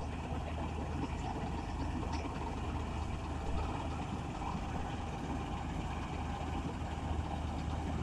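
Vishal combine harvester's diesel engine and threshing machinery running steadily as it harvests standing wheat, a constant low hum.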